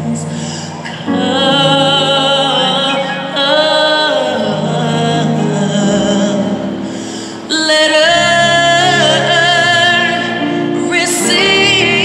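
Live choir singing long held notes with vibrato over music, amplified through an arena sound system, growing louder about a second in and again near the end.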